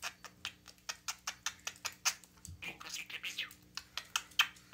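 Budgerigar chattering: a fast, irregular run of short clicks and chirps, with one sharper, louder chirp near the end.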